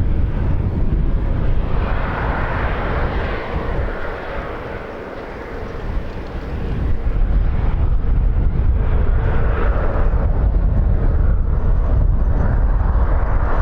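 Jet airliner's engines at takeoff power during its takeoff roll, the noise swelling, easing off about four seconds in, then building again, over heavy wind rumble on the microphone.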